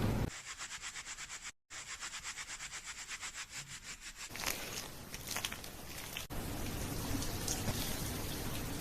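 Hair and scalp being rubbed and scratched during a shampoo. The first few seconds are quick, even strokes, about eight a second, and then it turns into a denser, steadier rubbing.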